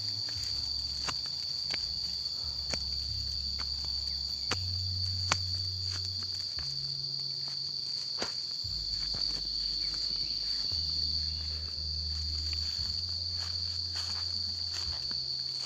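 A steady high-pitched insect drone, with footsteps and scattered clicks on a stony dirt path and a low rumble underneath.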